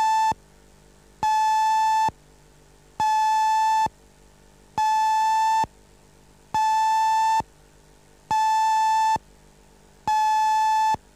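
Television close-down signal: a steady single-pitched beep, a little under a second long, repeating about every second and three-quarters, sounded with the end-of-broadcast card telling viewers to switch off the set. It signals that the channel has ended transmission for the day.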